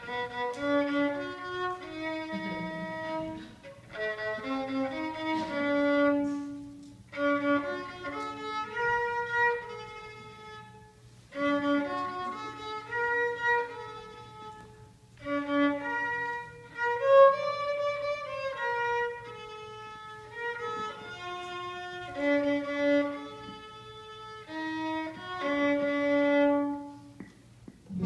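Solo violin playing a melody in phrases, with brief pauses between them.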